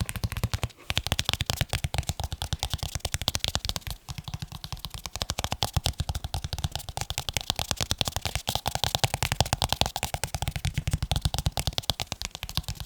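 Fast, continuous tapping on leather cases, a rapid patter of taps that stops briefly just under a second in and again about four seconds in.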